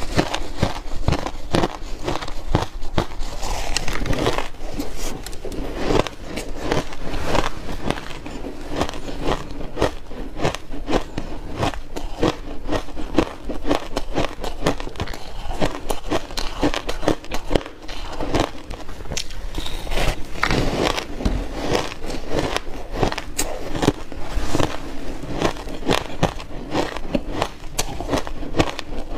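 Close-miked crunching of refrozen shaved ice mixed with buckwheat as a mouthful is bitten off and chewed. It makes a dense, irregular run of sharp crackling crunches throughout.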